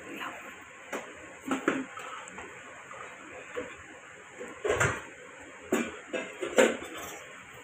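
Perforated steel skimmer clanking against a frying wok and a steel plate as fried pakoras are lifted out and tipped onto the plate: about five sharp metal clanks spread through, over a steady faint hiss.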